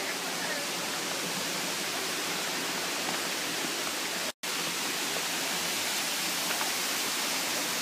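Waterfall pouring into a pool, a steady rushing of water that cuts out for an instant about four seconds in.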